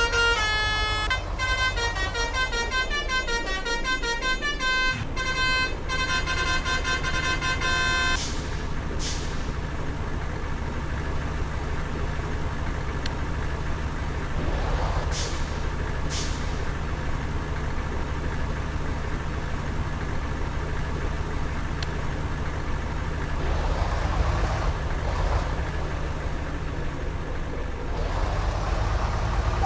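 Bus "telolet" musical horn playing a tune of stepped notes for about eight seconds, then stopping abruptly. A steady low rumble of heavy vehicle engines follows, with a few short hisses and swells of passing traffic.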